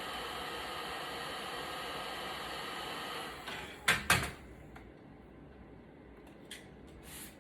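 A small electric blower motor, such as a heat gun or a canister vacuum, runs with a steady whir and stops about three and a half seconds in. Two sharp clicks follow close together, then a few faint ticks.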